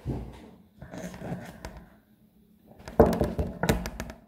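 Knife and fork cutting a pan pizza in a metal baking tray, the cutlery scraping and knocking against the tray in three short bouts, the loudest about three seconds in.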